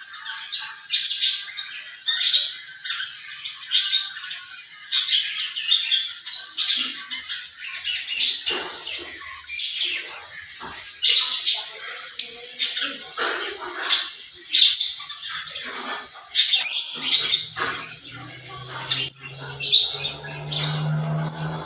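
A songbird known locally as a labet chirping and calling in quick, sharp repeated notes. A low steady hum joins in about three-quarters of the way through.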